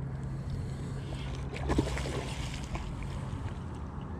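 Spinning reel being cranked, a steady low whir that stops about two-thirds of the way in, with water splashing around the middle.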